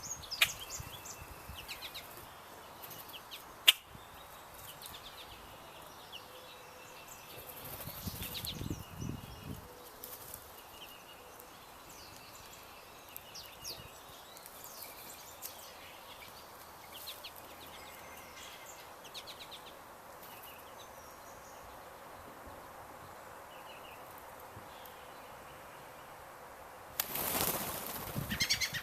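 Small birds chirping and calling, with loud bursts of wing flapping about eight seconds in and again near the end, and one sharp click a few seconds in.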